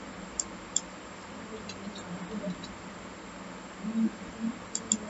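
Faint clicks of a computer mouse and keyboard while editing: a few single clicks and quick pairs of clicks, with mouse-wheel scrolling and a key press, over a steady background hiss.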